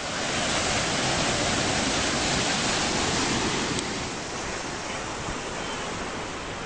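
Ocean surf: a steady rushing wash of breaking waves, louder for the first few seconds and then easing a little.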